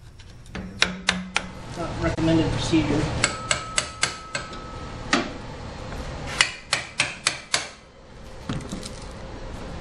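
Repeated mallet blows on the metal of a golf cart's drivetrain, knocking at the driven clutch to force it off its shaft. The blows come in runs of several quick strikes, and one leaves a short metallic ring.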